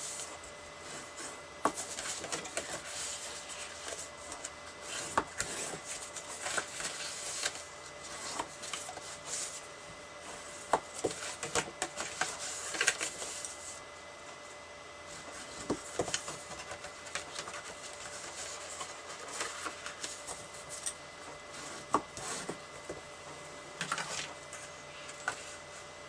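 Scored cardstock being folded along its score lines and creased flat with a bone folder: paper rustling and rubbing, with scattered soft taps and clicks against the mat.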